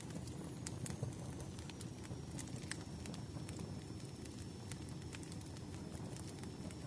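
Wood fire crackling, with irregular sharp pops over a steady low rustle.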